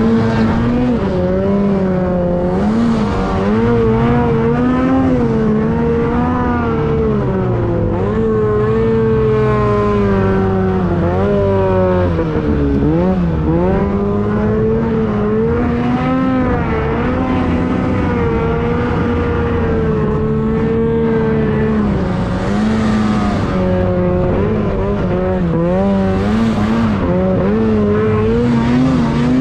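Two-stroke mountain snowmobile engine running hard under load, its pitch rising and falling with the throttle and dipping sharply about twelve seconds in before climbing again.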